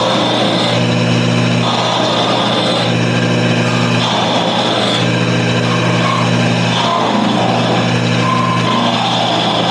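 Wood lathe motor running steadily, with a rough hiss that swells and fades as the spinning wooden top is worked.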